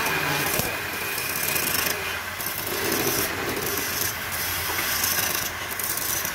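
Wood lathe turning a pale wood blank while a long hand-held turning tool cuts it: a continuous hissing scrape of shavings peeling off, swelling briefly several times as the tool bites harder, over a steady low hum.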